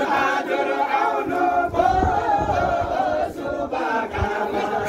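A group of voices singing together, unaccompanied.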